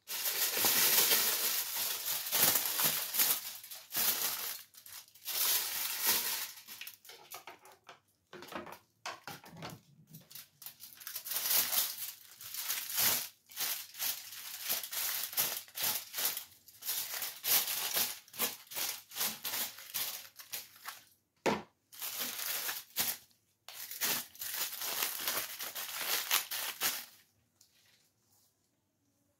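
Aluminium foil crinkling and rustling in irregular bursts as sheets are handled and folded around strands of wig hair for highlighting, dying away near the end.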